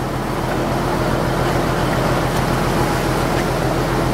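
Fishing boat's engine running steadily under way, a low even hum under a constant hiss of wind and water.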